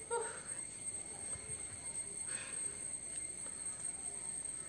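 A brief vocal sound right at the start and a short hiss about halfway through, over a steady high-pitched whine.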